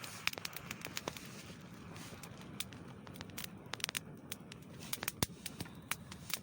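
Wood campfire burning in full blaze, crackling and popping with many sharp irregular snaps.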